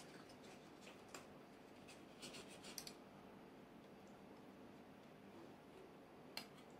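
Near silence with faint, scattered clicks and light scratching from small balsa-wood model parts being handled: a few ticks about a second in, a quick cluster about two to three seconds in, and one sharper click near the end.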